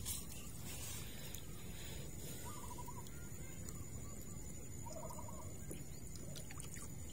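Two faint, short warbling calls from poultry, about two and a half and five seconds in, over a steady low background hiss.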